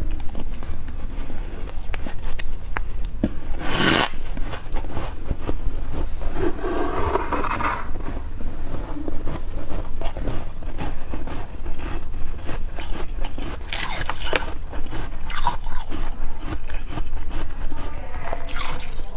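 A spoon scraping up freshly formed soft frost, with crunching bites of it and dense crackling clicks, broken by three short scraping strokes. A steady low hum runs underneath.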